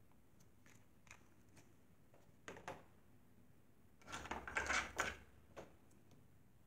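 Craft tools handled on a work table: a few light clicks, then a louder stretch of clatter and rustling about four seconds in as the glue pen is put down and tweezers are picked up.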